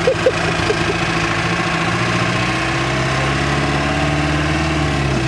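Engine of a tour vehicle heard from inside while it drives along a dirt road, running steadily; its note rises a little about two seconds in and drops away near the end. A few short sharp sounds come right at the start.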